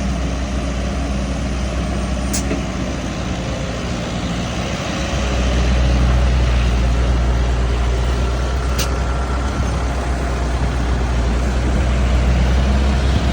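An engine running steadily with a deep hum, getting louder about five seconds in and stopping abruptly at the end, with two short sharp ticks.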